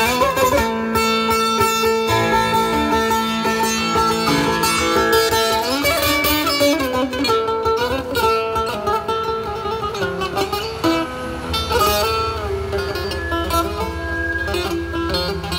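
Instrumental break in a Turkish folk song: a plucked string instrument plays the melody over a band, with no singing.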